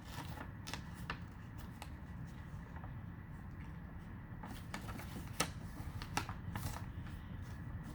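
A sheet of paper being handled and folded into a crease: scattered crisp rustles and crackles, a few sharper ones about five and a half and six seconds in.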